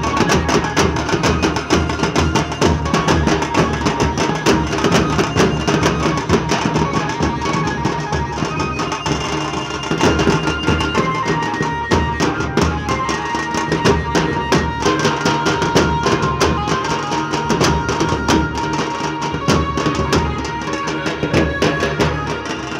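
Nashik dhol and tasha ensemble drumming: several large barrel dhols beaten with a heavy stick and a thin cane, with a small tasha rattling fast strokes on top, in a dense, driving rhythm.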